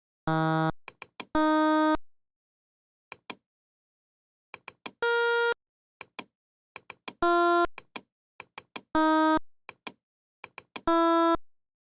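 A series of six short electronic tones, each about half a second long, starting and stopping abruptly at several different pitches, with brief clicks between them. This is an edited, pitch-shifted sound effect built in a video editor.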